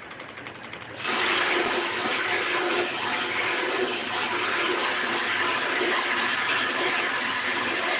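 A high-pressure jet stripping paint from wood, starting abruptly about a second in and then hissing steadily.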